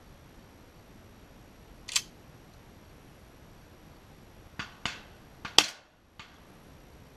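Shotgun fired at flying doves: one loud, sharp report about five and a half seconds in, the loudest sound. It is preceded by a few quieter sharp cracks, one about two seconds in and a quick cluster just before the main shot.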